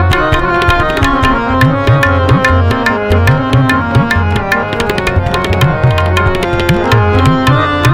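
Instrumental interlude of Sikh shabad kirtan: tabla playing a steady, busy rhythm, its bass drum's pitch gliding up and down, over sustained harmonium tones.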